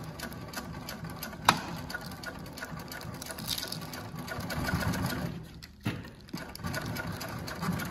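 JUKI LU-2810 triple-feed walking-foot lockstitch industrial sewing machine stitching through layered fabric, run in reverse at the start, with a fast, even chatter of stitches. A sharp click about a second and a half in; the stitching dips briefly near six seconds, then carries on.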